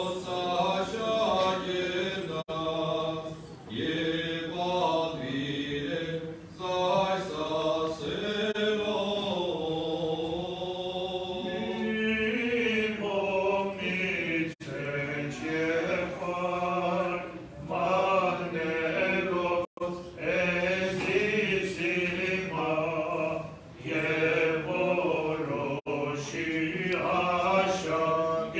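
Armenian Apostolic liturgical chant sung by men's voices, long melodic phrases broken by short pauses, over a low note held steady beneath.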